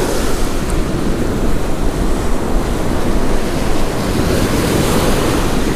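Steady rush of surf washing up on the beach, with wind buffeting the microphone.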